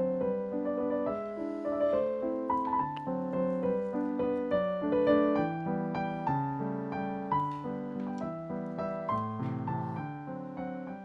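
Background music: a solo piano piece playing chords and a melody, slowly getting quieter toward the end.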